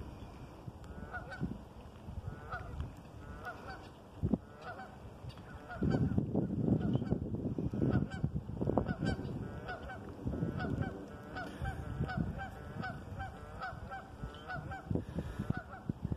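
A flock of geese honking over and over, many short calls in quick succession. A louder low rumbling noise joins in about six seconds in.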